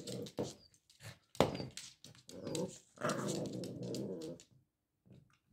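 Cavalier King Charles spaniel puppy growling in several stretches while it plays with a toy ball, with sharp clicks and knocks of the toy on a laminate floor among the growls. The longest growl comes about three seconds in, and the last second is quiet.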